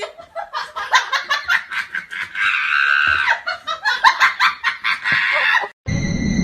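A person laughing hard in quick repeated bursts, which stop abruptly near the end. A different sound with steady high tones then takes over.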